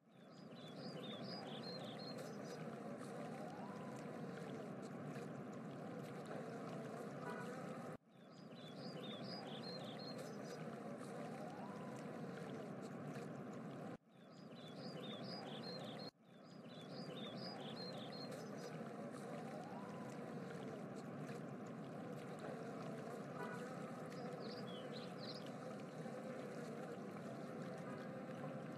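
Faint, steady rushing ambience like running water, with brief clusters of high chirps now and then. It drops out suddenly and fades back in three times.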